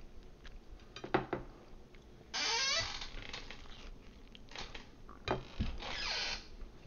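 Biting and chewing pizza close to a headset microphone: a few wet mouth clicks, then two louder bursts of crunching, one about two and a half seconds in and one near the end.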